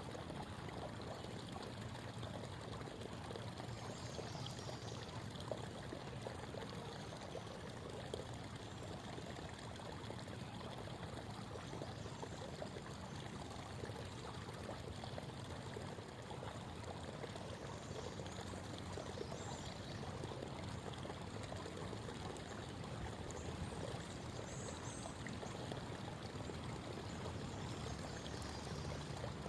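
A shallow creek babbling and trickling steadily over stones.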